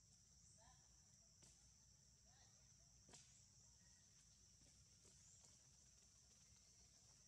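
Very faint, steady high-pitched drone of insects, with a couple of short faint calls and a few soft clicks.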